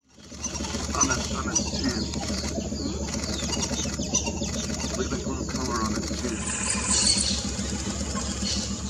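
A boat motor idling with a steady low hum while birds call over it.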